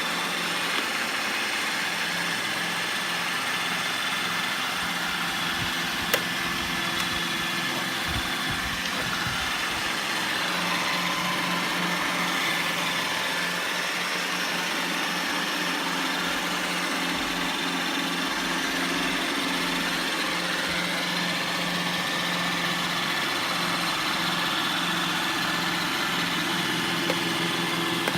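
Roomba robot vacuum running: a steady whir of its vacuum and brush motors with a few steady tones over the hiss, and a sharp click about six seconds in.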